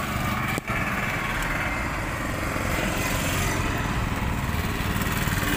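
An engine running steadily, with a brief gap in the sound about half a second in.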